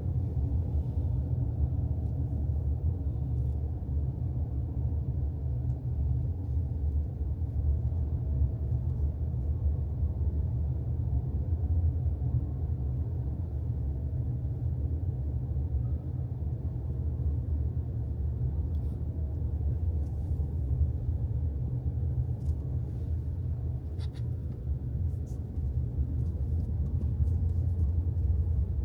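Steady low rumble of a car driving, with a few faint clicks late on.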